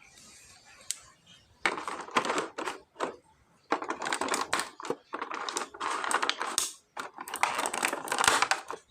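Plastic packaging crinkling and crackling as it is handled and pulled open, in three long bouts with short pauses between.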